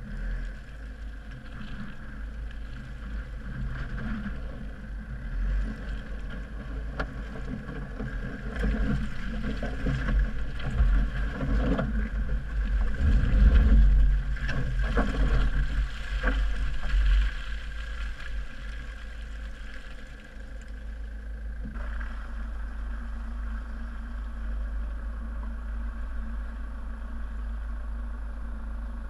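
Land Rover Freelander 2's SD4 diesel engine running as the car drives slowly over rutted mud, with a low rumble and scattered knocks and thumps from the rough ground, loudest about halfway through. The sound changes abruptly a little before the end to a steadier engine hum.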